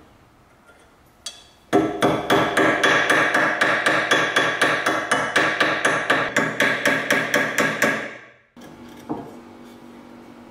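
Ball-peen hammer rapidly tapping a small steel pin through a strap on an iron part held in a vise, peening it over like a rivet. The sharp, ringing metal taps come about four or five a second for some six seconds, then stop abruptly, and one lighter knock follows.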